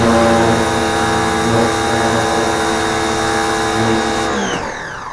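Small pressure washer running steadily under load with the water spray hissing. About four seconds in, its motor winds down with a falling pitch as it stops.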